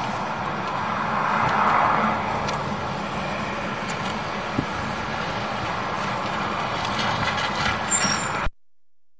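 A vehicle engine running steadily, a low hum under a broad rushing noise, which cuts off suddenly near the end.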